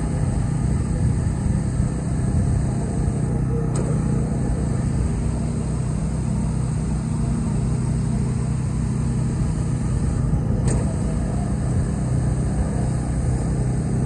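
Concrete pumping equipment's engine running with a steady drone, with two brief clicks about 4 and 11 seconds in.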